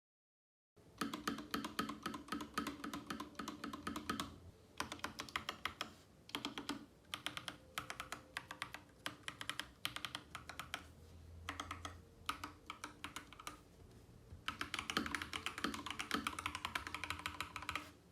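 Typing on an Akko 5108B Plus mechanical keyboard: fast runs of key clicks in bursts, broken by short pauses.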